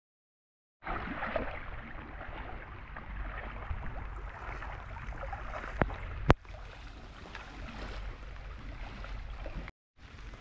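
Water splashing and lapping around a kayak being paddled on a river in light rain, starting abruptly about a second in. Two sharp knocks come about six seconds in, the second the loudest.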